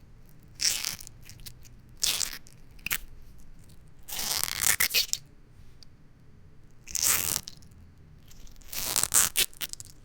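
An orange being squeezed and squished, six juicy squishes at irregular intervals, each lasting under a second.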